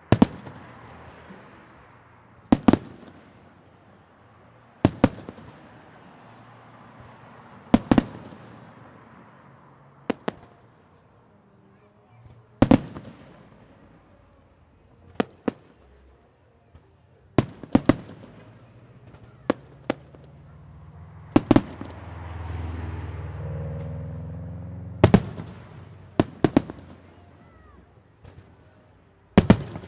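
Fireworks bursting overhead: sharp bangs every two to three seconds, some in quick pairs, each followed by a fading crackling hiss. A low rumble swells and fades between the bangs a little past the middle.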